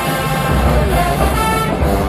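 Marching band playing, with sustained brass over heavy low drums.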